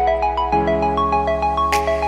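Background music: a quick, bouncy melody of short bright notes, about six or seven a second, over a steady low bass note, with a short swish about three-quarters of the way through.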